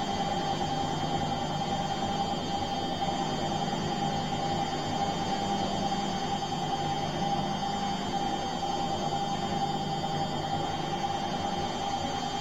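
Bosch washing machine running, a steady whine over a low hum, with no change in pace or pitch.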